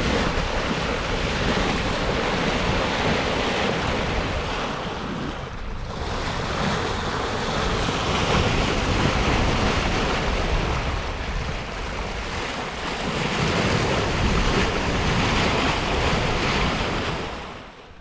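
Bow wave of a Westsail 32 sailboat under way, rushing and splashing along the hull, with wind buffeting the microphone. The rush swells and eases every few seconds and fades out near the end.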